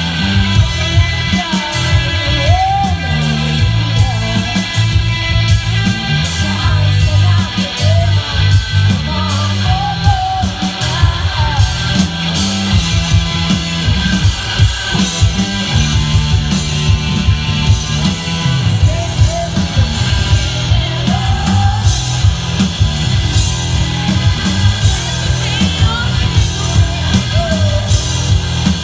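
Rock band playing live: steady drums, bass and guitars, with a voice singing a melody over them at intervals.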